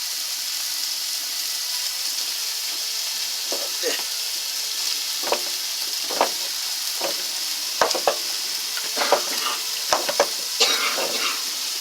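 Hamburger frying in a pan, a steady sizzle, with a few light knocks and faint voices in the background.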